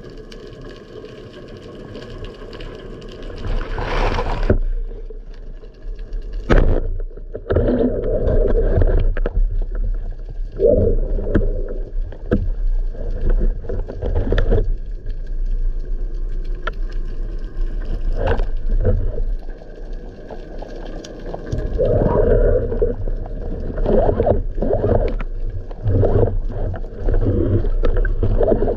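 Underwater sound picked up through an action-camera housing on a speargun: water swirling and rustling over the housing as the diver shifts, with scattered sharp clicks and knocks. A faint steady hum of several tones runs under it and fades out about three-quarters of the way through.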